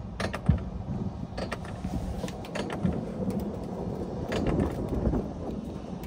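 Alpine coaster sled running on its metal rails while being towed uphill by the cable: a steady low rumble with irregular clicks and rattles.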